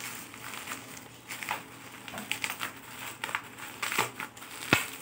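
Bubble wrap crinkling and crackling as it is handled and squeezed around a small box, in irregular bursts, with one sharp snap near the end, the loudest sound.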